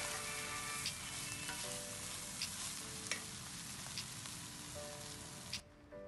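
Food sizzling as it fries in a pan, with a few light clicks, cutting off about five and a half seconds in. Soft music notes run underneath.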